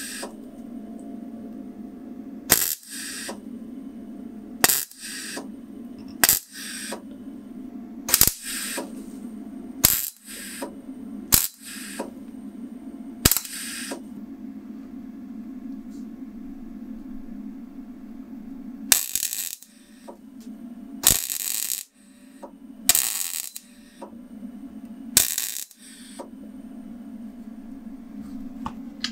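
Handheld gas torch burning steadily while heating a steel key bit onto its shaft in a vise, under about a dozen sharp metallic clicks and clinks a second or two apart, the loudest in the last third.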